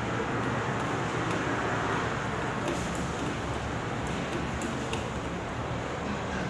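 Steady background rumble and hiss with a few faint clicks.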